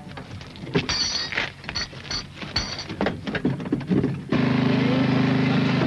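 Service mechanics' tools clanking and knocking on a rally car, with a few brief high squeaks. About four seconds in, a loud, steady mechanical drone starts abruptly.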